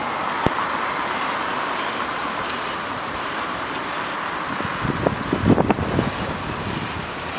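Steady noise of road traffic, with a sharp click about half a second in and a few low thumps about five seconds in.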